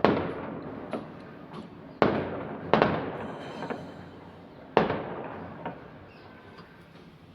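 Daytime fireworks exploding: four loud bangs and several smaller pops, each fading away in a rolling echo.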